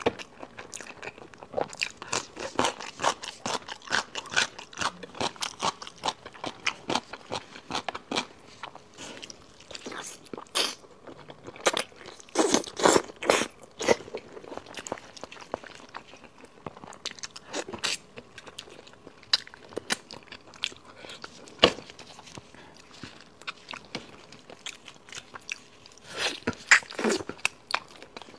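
Close-miked eating of a braised pig's trotter: wet chewing, biting and lip-smacking, a rapid run of small mouth clicks, with louder bouts about halfway through and again near the end.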